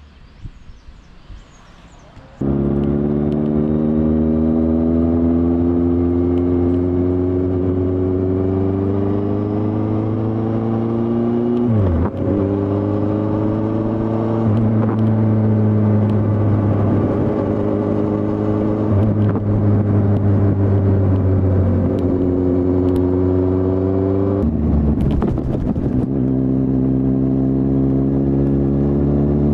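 2015 Kawasaki Z800's inline-four engine pulling the bike along, heard loud from a helmet camera after a quieter first couple of seconds. The revs slowly climb and ease through the bends, dropping sharply about twelve seconds in and again around twenty-five seconds.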